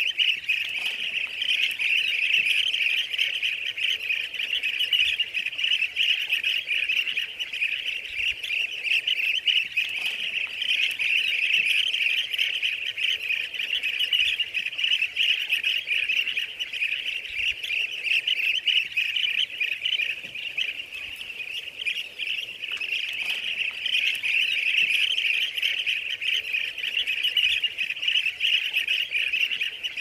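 Dense, continuous chirping of many birds, a busy unbroken chorus that eases slightly for a few seconds past the middle.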